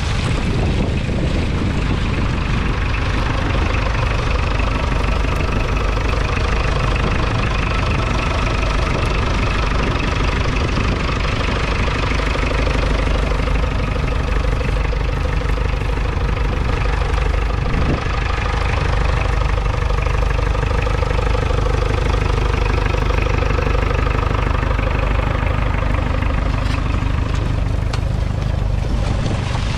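Ferguson FE35's 2.3-litre four-cylinder diesel engine running steadily under load as the tractor pulls a two-furrow mounted plough.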